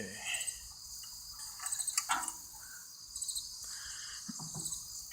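Steady, high-pitched insect chirping in repeated short trills, with a few light clicks and taps from hand work on the engine parts.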